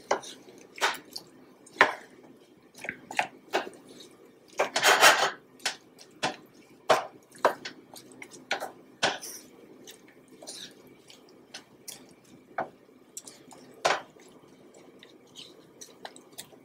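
Wooden spoon stirring diced apples in syrup in a stainless steel skillet: irregular knocks and scrapes of the spoon against the pan with wet squishing of the fruit, and a longer scrape about five seconds in.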